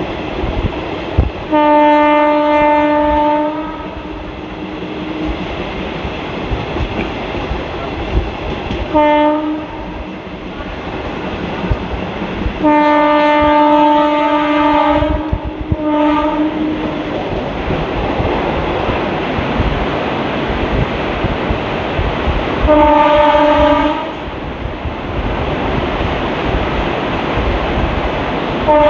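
A WCAM3 electric locomotive's horn sounds five times, in long and short blasts, over the steady rumble and clickety-clack of a moving ICF passenger coach's wheels on the track.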